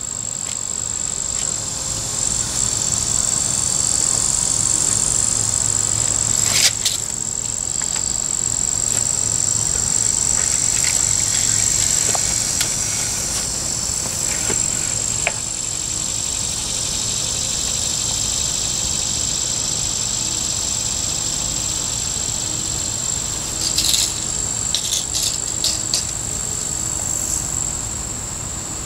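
Steady high-pitched chorus of summer insects. A short click about seven seconds in and a cluster of small clicks and knocks near the end.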